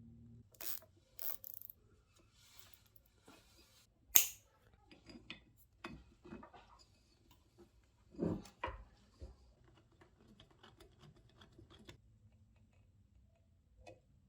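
Irregular clicks and knocks of small metal parts being handled, with one sharp click about four seconds in and a few duller knocks around eight seconds.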